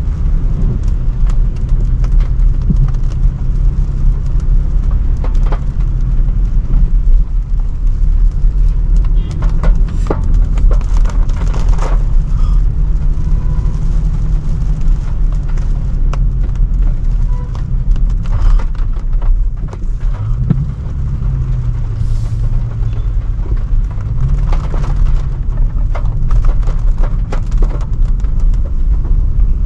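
Range Rover Sport being driven: a steady low engine and road rumble whose engine note drops and climbs again about two-thirds of the way through, with scattered sharp ticks.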